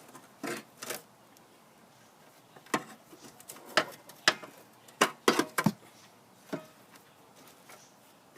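Scattered clicks and knocks of hand tools and metal and plastic mower drive parts being handled, with a quick cluster of several knocks near the middle.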